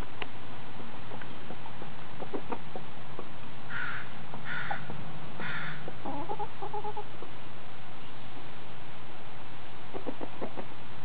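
Domestic hens clucking: scattered short clucks, three rough, higher squawks about four to six seconds in, a short call of several pitched notes right after, and a few more clucks near the end.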